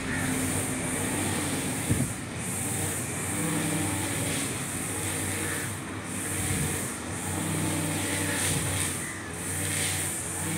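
Husqvarna 542RBS backpack brush cutter's two-stroke engine running, revved up and eased off again and again as its 2.2 mm round nylon line cuts short grass, with a steady high whine above the engine. A sharp knock about two seconds in.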